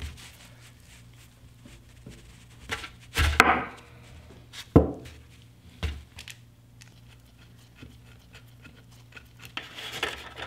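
A wrench working the 12 mm brake line fitting loose on a brake caliper: metal tool knocks and clanks, the loudest about a third and halfway through, then light clicking near the end. A steady low hum runs underneath.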